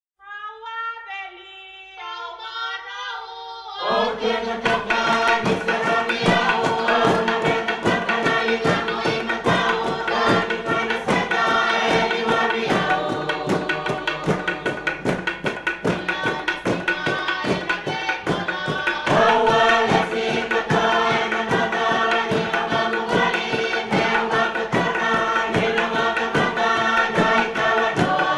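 Fijian meke music: a lone voice sings the opening phrases, then about four seconds in a group of singers comes in with steady, rhythmic percussion that runs on.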